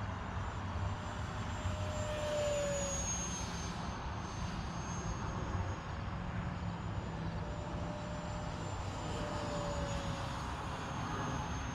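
Freewing F-22 Raptor 64mm electric ducted-fan model jet on 4S flying by: a steady fan whine that drops in pitch twice as the jet passes, once about a quarter of the way in and again near the end.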